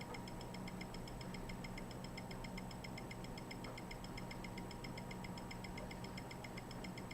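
Automatic cuff blood pressure monitor running a measurement: a steady, rapid ticking, about eight ticks a second, over a low, steady hum.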